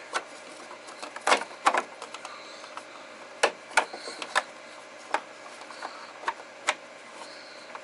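Irregular sharp clicks and knocks of plastic refrigerator parts being handled and pushed, as a loose part is worked back into place without snapping in.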